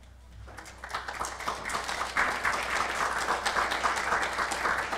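Audience applauding: many people clapping, starting softly about half a second in, building to a dense, steady clapping, and beginning to thin out near the end.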